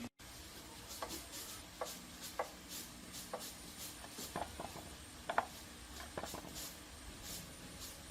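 Faint, scattered light clicks and taps, with some soft rubbing, from small parts being handled during hands-on repair work.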